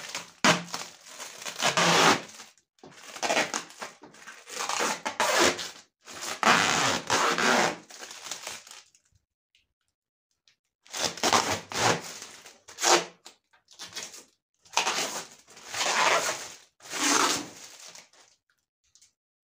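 Protective plastic film being peeled off a stainless steel dishwasher door: crackling, tearing rustles in two long bouts, with a pause of about two seconds between them.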